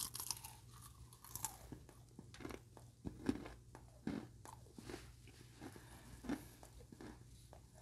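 A person biting into and chewing a crisp freeze-dried oyster: faint, irregular crunches scattered through the chewing.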